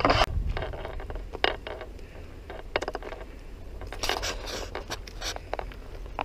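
A sharp clunk at the start as a car door is opened, then irregular footsteps and scuffs on gravel and dry leaves.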